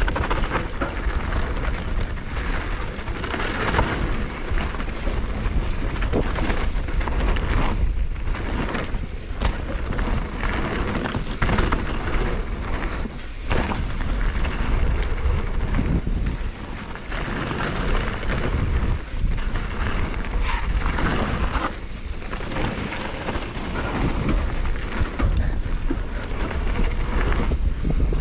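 Mountain bike descending a loose gravel trail at speed: wind buffeting on the action-camera microphone over tyres crunching on gravel and the bike rattling over rocks, a constant rumble with frequent small knocks.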